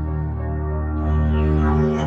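Sustained low drone from a sound-healing instrument, thick with overtones, its upper tones growing brighter about a second in.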